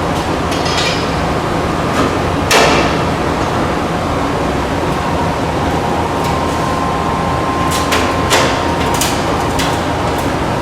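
Metal parts and tools clanking and clinking against each other while exhaust hardware is refitted under a car, with the loudest clank about two and a half seconds in, followed by a short ring. A steady background hum runs underneath.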